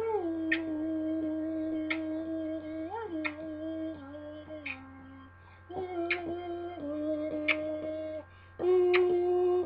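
A voice humming a slow tune in long held notes, with short breaks between phrases and a sharp click about every second and a half.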